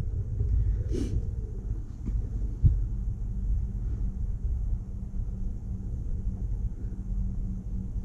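Low outdoor rumble, with a faint steady engine-like hum setting in about three seconds in and a single small click a little before that.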